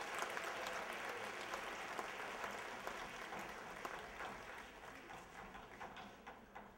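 Audience applause dying away, thinning out into scattered separate claps toward the end.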